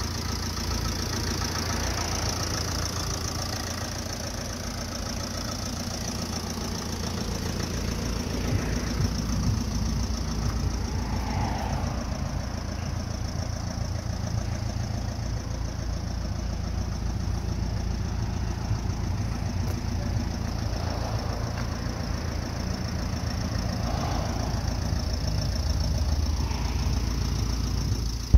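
Ford Transit Connect van engine idling steadily.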